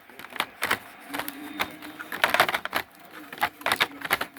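Handling noise of a small plastic HDMI switch box and its packaging: a series of irregular clicks, taps and rustles.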